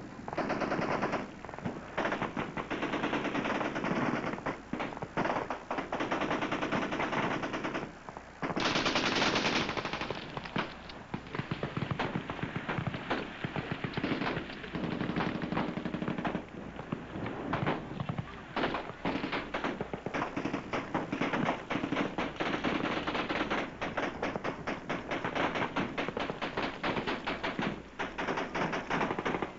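Sustained automatic gunfire from several machine guns firing together: a dense rattle of overlapping shots, broken by brief lulls. The loudest burst comes about nine seconds in.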